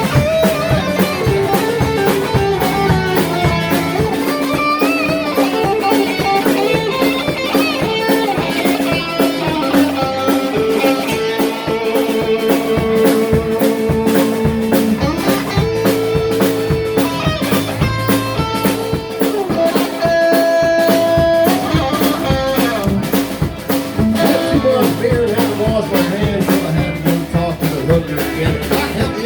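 Live band playing: guitar to the fore over a steady drum beat.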